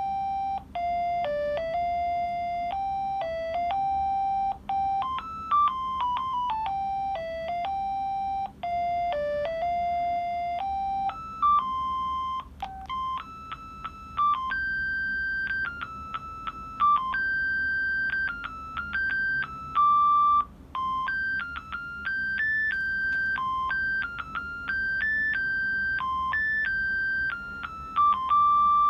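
Audiovox CDM-8200 mobile phone playing a monophonic ringtone: a tune of single electronic beeping notes, one at a time. The melody moves higher about eleven seconds in.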